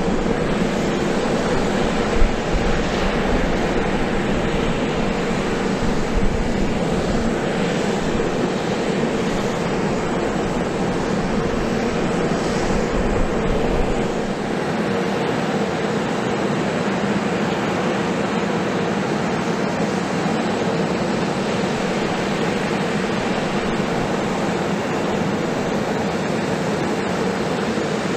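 Steady aircraft running noise, a constant hum that holds one pitch throughout; the deepest rumble drops away about halfway through.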